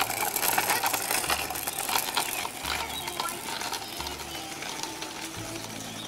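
Small kick scooter's hard plastic wheels rolling and rattling over asphalt as a dog rides it, a dense run of clicks over a steady hiss. A low hum swells and fades about every second and a half.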